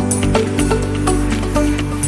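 Background electronic music with a steady beat and sustained bass notes.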